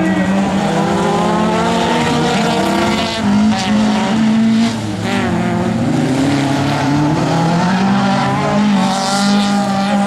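Several hatchback race cars running hard on a dirt autocross track, their engines revving up and falling back with several engine notes overlapping.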